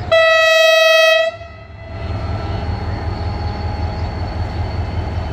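One loud blast, about a second long, on a single steady note, from the horn of a Pakistan Railways HGMU-30 diesel locomotive at the head of a departing express. It cuts off sharply, and the locomotive's diesel engine goes on running with a steady low rumble.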